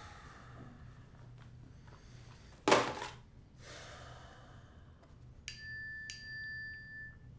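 A short rush of noise, the loudest sound, a little under three seconds in; then near the end two bright struck notes about half a second apart, like chimes or a glockenspiel, ringing on for about a second.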